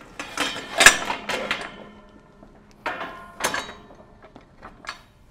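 Steel tube frame of a leaf-vacuum collector knocking and clattering against the corner brackets as it is seated on the cart bed. A cluster of knocks comes in the first second and a half, the loudest about a second in, then two more knocks around three seconds and a few faint clicks near the end.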